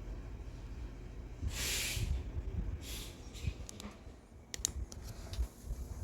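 Bench work on a 15-inch woofer during voice coil repair: a short hiss about one and a half seconds in, a fainter one about a second later, then a few sharp clicks and taps of small parts being handled.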